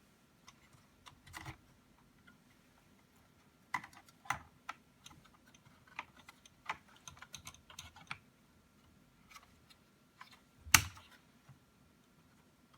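Irregular small clicks and taps of plastic laptop parts being handled, with one louder knock near the end.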